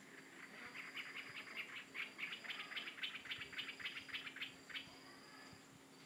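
An animal calling in a rapid run of short chirps, about five a second, growing louder and then stopping after about four seconds. A steady high insect drone runs underneath.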